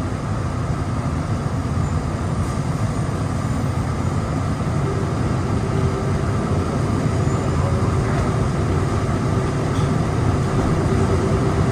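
Running noise heard from inside a Plane Train car, a rubber-tyred automated people mover, as it travels along the tunnel guideway: a steady rumble. A steady hum joins it about five seconds in.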